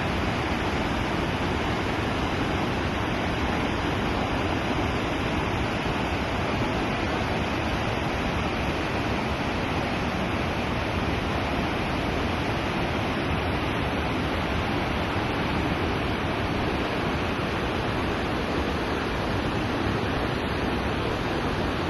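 Steady rushing water, an even unbroken noise with no separate sounds standing out.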